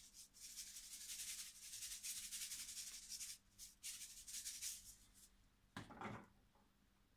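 Salt being shaken over sliced potatoes in a baking dish: a faint, dry rattle of grains in quick, uneven strokes for about five seconds, then one short rustle near the end.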